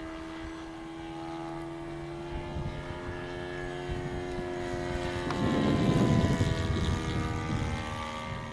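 Radio-controlled model airplane's motor and propeller droning steadily overhead, its pitch drifting a little. A louder, rougher rush builds from about five seconds in and fades after seven.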